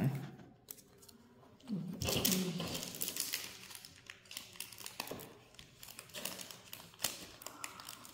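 Paper and cardstock handled on a tabletop: soft rustling and crinkling with small scattered clicks and taps, starting about two seconds in.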